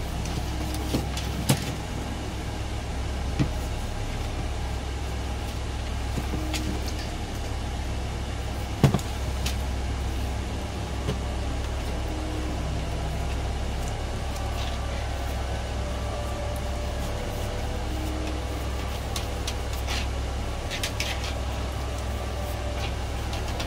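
A steady low hum in the background, with a few light taps and clicks from hands working on a small wooden plaque on a table; the sharpest click comes about nine seconds in.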